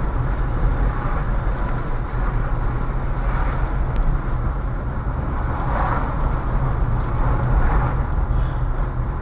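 Car driving slowly, heard from inside the cabin through a dashcam microphone: a steady low engine and road rumble with tyre hiss, swelling slightly twice in the second half, over a thin steady high whine.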